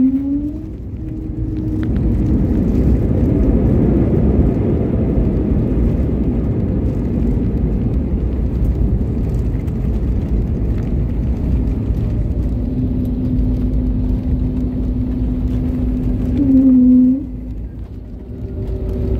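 Airbus A320-family airliner heard from inside the cabin during its landing roll-out: a loud, steady rumble of engines and wheels on the runway. The roar builds about two seconds in, holds, then drops off sharply near the end as the aircraft slows, leaving a steadier engine hum.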